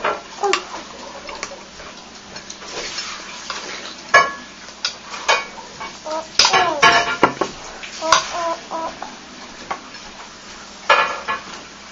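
Cutlery and dishes clinking and knocking at a breakfast table as a small child handles his plate and utensils: a scattered series of separate sharp clinks, with a cluster in the middle.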